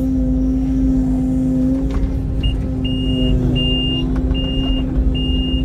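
Mini excavator's diesel engine running steadily, and a little under halfway through a backup alarm starts beeping, a high, evenly spaced beep a little faster than once a second.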